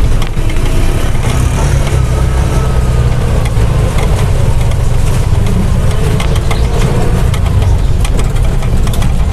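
TVS King three-wheeler's single-cylinder engine running steadily as it pulls the vehicle along in second gear, heard from inside the cab with a strong low rumble.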